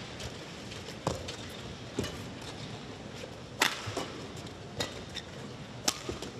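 Badminton rally: a racket strikes the shuttlecock five times, about one to one and a half seconds apart, with fainter taps between.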